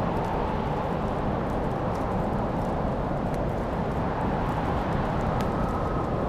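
Wood fire burning in a fireplace: a steady low rush of flames with a few faint crackles and pops scattered through it.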